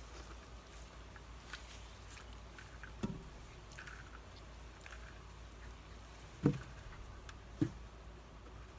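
Floral foam being handled: soft crackling and squishing, with three dull thumps, one about three seconds in and two near the end.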